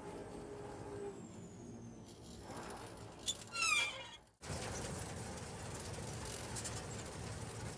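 Combine harvester running with a steady drone. A little over three seconds in there is a click, then a quick run of high squeaks falling in pitch, the loudest sound here. Just after four seconds the sound cuts out for a moment and comes back as a steady, rougher noise.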